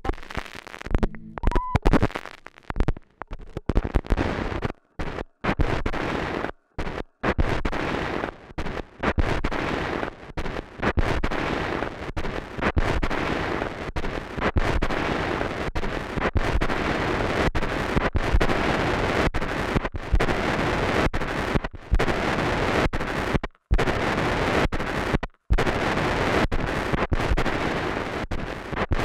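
Abstract turntablism: a stylus riding a broken, cracked vinyl record through a DJ mixer, giving loud crackling noise and pops. It is choppy at first, with repeated sudden drop-outs to silence, then settles into a denser, steadier wash of noise with two brief cut-outs near the end.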